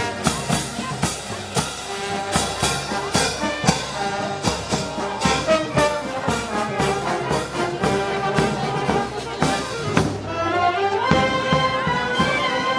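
Brass band music with drums keeping a steady beat of about two strokes a second, the kind of band that plays Moros y Cristianos festival music. About ten seconds in, the drums drop back and the brass holds long notes.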